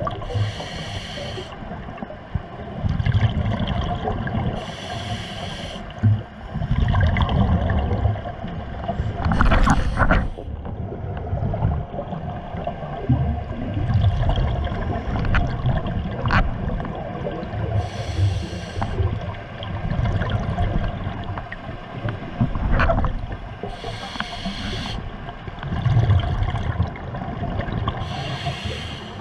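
Scuba diver breathing through a regulator underwater: about six hissing inhales, a few seconds apart, each followed by a low bubbling rumble of exhaled bubbles, with a few sharp clicks between.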